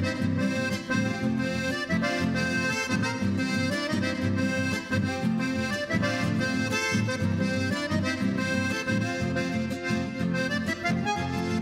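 Accordion-led traditional folk music with a steady beat.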